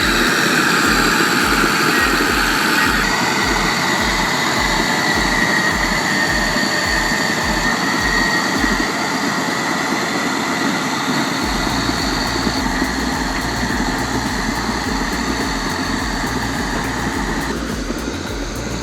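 Engine of a heavy earthmoving machine running steadily, with the sound changing abruptly a few times as the footage cuts between machines.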